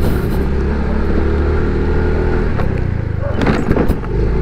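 Motorcycle engine running steadily, with a short burst of rough noise about three and a half seconds in.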